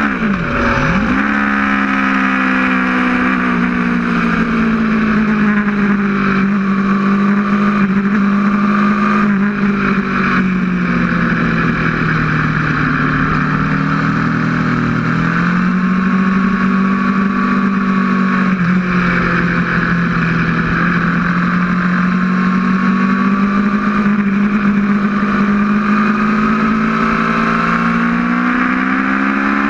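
Aprilia RSV4's V4 engine running hard at speed, heard from on board over heavy wind rush. The engine note drops sharply and picks straight back up about a second in, sags lower for a few seconds around the middle while the bike leans through a corner, then climbs back up.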